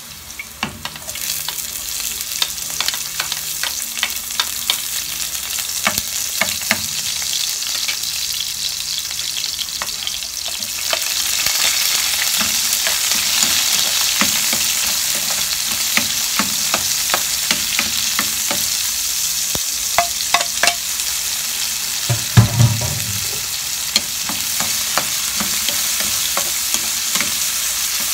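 Sliced ginger and chopped onion sizzling in hot oil in a nonstick wok while a spatula stirs and scrapes with frequent clicks. The sizzle grows louder about a third of the way in as the onion goes into the pan, and a single dull thump sounds a little past the middle.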